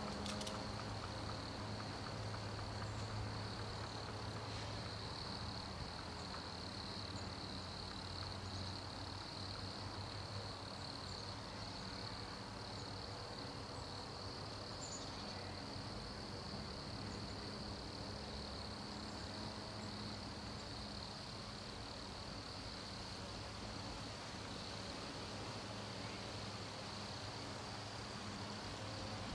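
Wood crickets (Nemobius sylvestris) singing in chorus from the leaf litter: a steady high purring trill that never lets up, over a low background hum.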